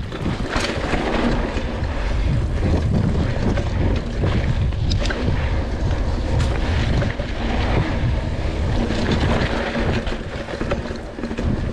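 Mountain bike riding a dirt trail: wind buffeting the rider's camera microphone in a steady low rumble, mixed with knobby tyres rolling over sand and dirt, and a few sharp knocks as the bike goes over bumps.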